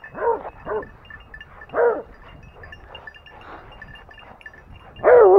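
Hunting dogs worrying a freshly shot wild boar, giving four short, high whining yelps, the last near the end.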